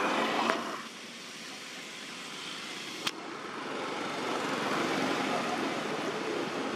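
Steady outdoor background noise, louder in the first second, with a single sharp click about three seconds in.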